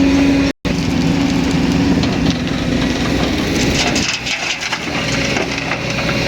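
Excavator diesel engine running with a steady hydraulic whine, then a stretch of crunching and clattering from about three and a half to five seconds in, typical of the bucket scraping into dirt and stones. The sound cuts out for an instant about half a second in.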